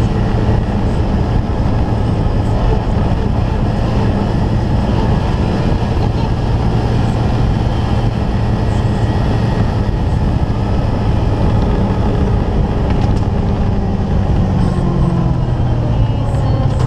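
Honda Pioneer 500 side-by-side's single-cylinder engine running steadily at cruising speed, with wind and road noise. The engine note falls slightly near the end.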